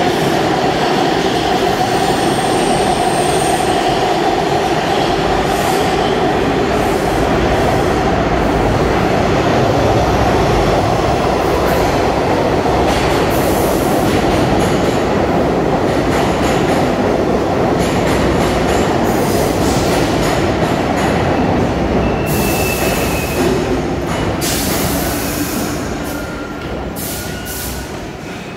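Subway trains in a station: a train running through on the far track, then an R62A 6 local pulling in on the near track. The wheels squeal as it brakes, and the noise dies down as it slows to a stop near the end, with brief high brake squeals and short bursts of hiss.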